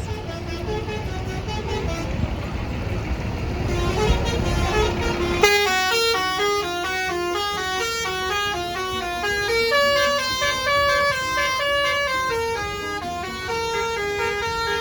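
Bus engine rumbling, then about five and a half seconds in a basuri musical bus horn starts suddenly and plays a quick tune of stepped notes.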